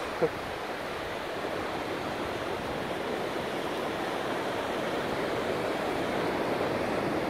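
Surf on a beach: a steady rush of waves, growing slightly louder.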